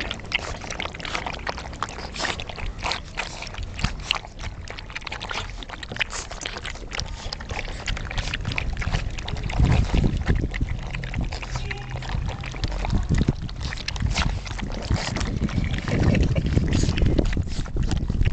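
Several puppies lapping milk from a bowl close to the microphone: a dense, fast run of wet clicks and splashes. Low rumbling bumps, about halfway through and again near the end, come as the puppies push against the camera.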